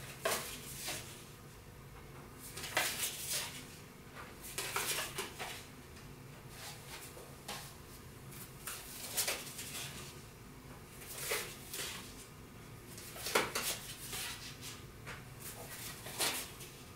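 Playing cards being handled: cards slid off a hand-held stack and set onto a house of cards, heard as short scrapes and taps in small clusters every two or three seconds.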